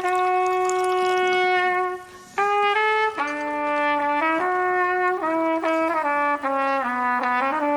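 Amphibious trumpet, a novelty trumpet, playing a solo melody. It holds one long note, breaks off briefly about two seconds in, then moves through a run of shorter stepped notes.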